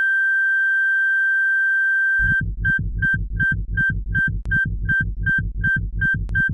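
Electronic background music: a held high synth tone for about two seconds, then the same note pulsing about three times a second over a steady low beat.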